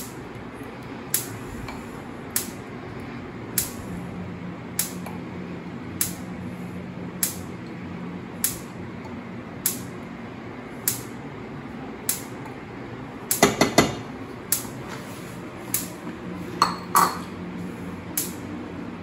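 Kitchen utensil and dish sounds as yellow mustard is scraped from a ceramic bowl into a stainless steel saucepan: sharp clicks about once a second, a short clatter about two-thirds of the way through, and a ceramic clink near the end as the bowls are handled. A low steady hum runs underneath.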